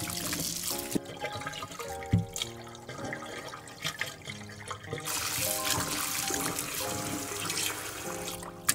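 Tap water running into a stainless steel bowl of cut potato strips while hands rinse them, over background music with a steady melody. The running water stops about a second in and starts again about five seconds in; a single thump about two seconds in is the loudest sound.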